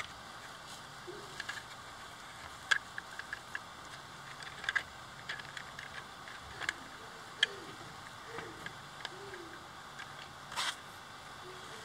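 Rigid 3D-printed plastic parts being handled and fitted together by hand: a scattering of sharp clicks and taps a second or two apart over a faint steady background.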